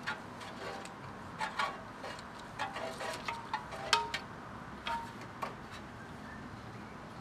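A string of light metallic clicks and clinks from hands working on a stopped Honda EG1500X generator, a few of them leaving a brief ringing note. The engine is not running.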